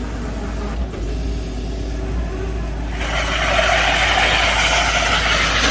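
Excavator engine running steadily under hydraulic load as the excavator-mounted core drill is raised out of its finished hole in rock. About three seconds in, a loud steady hiss joins the engine drone.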